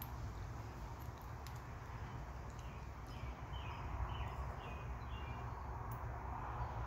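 A bird singing a quick run of about six short, falling chirps in the middle, over a steady low background rumble.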